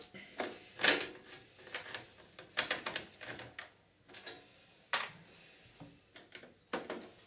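Hands working the sheet-metal top cover of a Sanyo VHR-7700E video recorder loose: irregular clicks, taps and short scrapes of metal, loudest about a second in and again around three seconds in.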